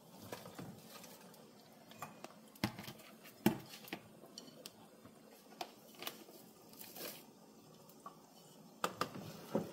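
Scattered clicks and knocks of a plastic container against a metal stew pot as pieces of meat are tipped into the stew, with two louder knocks about three seconds in and a few more near the end.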